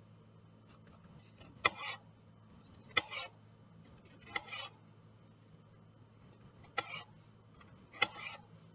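Kitchen knife slicing through a ripe tomato onto a plastic cutting board: five slicing strokes, each a sharp tap of the blade on the board followed by a short scrape, about one to two seconds apart.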